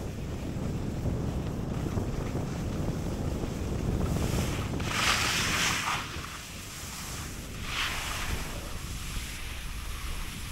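Wind buffeting the microphone of a camera carried downhill by a skier, with the hiss of skis scraping over hard-packed snow. The scraping hiss is loudest about five to six seconds in and comes again briefly near eight seconds.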